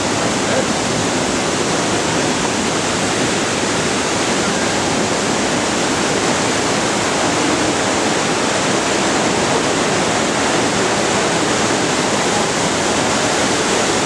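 Waterfall rushing: a loud, steady, unbroken noise of falling water.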